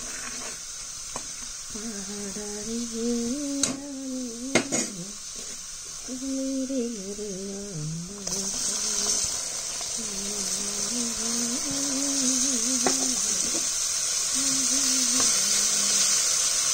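Spiced oil sizzling in a steel kadhai, with a metal spoon clicking against the pan twice. About eight seconds in, chopped okra and onion are tipped into the hot oil, and the sizzle turns suddenly louder and brighter. A voice hums a tune through much of it.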